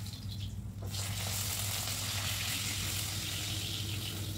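Catla fish pieces sizzling as they fry in hot oil in a cast-iron kadai, being turned with a spatula. The sizzle swells about a second in and then holds steady.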